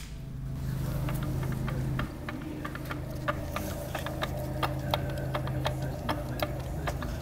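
Light metallic clicks and ticks, irregular and a few a second, from differential parts being handled, over a steady low hum.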